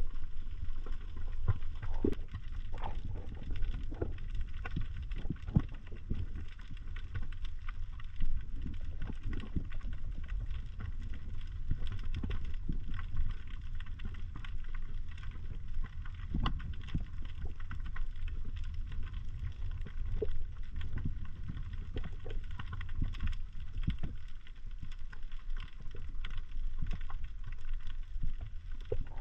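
Underwater ambience picked up by a camera in its waterproof housing: a steady low rumble of water moving against the housing, with scattered short clicks and crackles.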